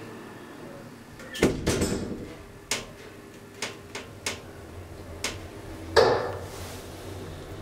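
DEVE hydraulic elevator door closing: a clatter of knocks about a second and a half in, a few separate clicks, then a loud thump about six seconds in as the door shuts, followed by a brief hiss and a low hum.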